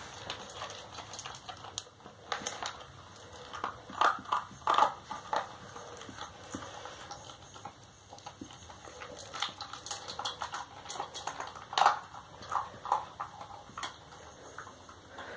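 Basset hound chewing dry kibble from a stainless steel bowl: irregular crisp crunches and clicks, with louder clusters about four seconds in and again near twelve seconds.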